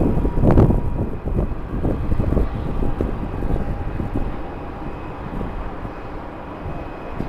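Gusty wind buffeting the microphone over the rumble of a jet airliner's engines, with a faint steady whine. The gusts are strongest in the first second and ease off after that.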